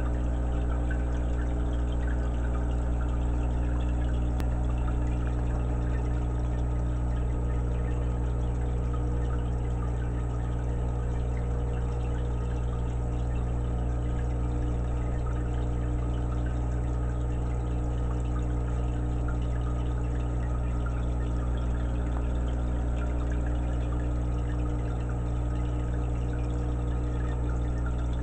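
Aquarium air stone bubbling steadily, an even fizz of water over a steady low hum.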